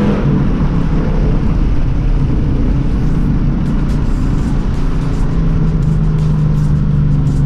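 Ford Mustang GT's 5.0 V8 through a muffler- and resonator-deleted exhaust while driving. A rising rev ends as the sound begins; it rumbles unevenly off the throttle, then settles into a steady drone about five seconds in.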